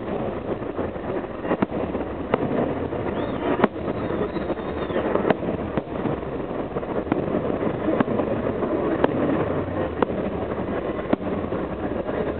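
Fireworks salute with shells bursting overhead: a string of sharp bangs, about one a second, over a steady noisy background.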